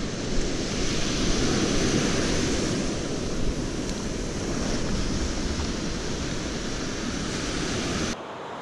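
Shore-dump waves breaking and washing up a sand beach in a steady rush of surf noise. It swells about a second in and again midway, then cuts off suddenly just before the end.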